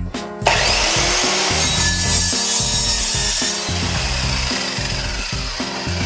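Evolution EVO230 steel-cutting circular saw slicing through 30 mm square steel tube with a 2 mm wall. The blade bites in suddenly about half a second in with a loud, harsh cutting noise, and the high part eases after about three seconds as it finishes the cut.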